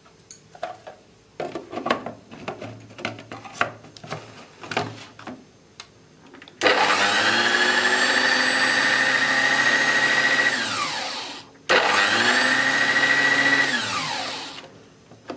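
White kitchen food processor: plastic clicks and knocks as the lid is fitted onto the bowl, then the motor starts suddenly and runs for about four seconds, winds down with a falling whine, starts again for about two more seconds and winds down again, blending a dry mix of flour and sugar.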